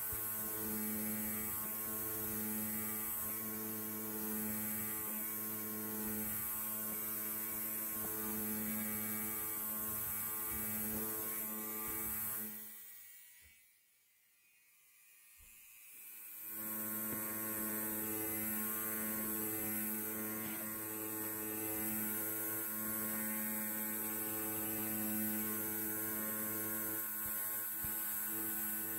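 Electric hair clipper buzzing steadily. About halfway through it fades out for a couple of seconds and then fades back in.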